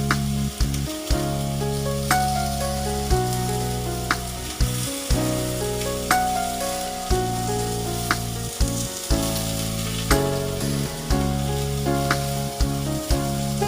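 Food sizzling as it fries in a pot, under background music with steady held notes and a regular beat about once a second.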